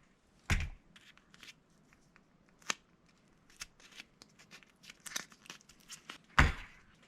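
Cardboard pieces and small strips of tape being handled and pressed together: scattered light clicks and crinkles, with a soft thump about half a second in and another near the end.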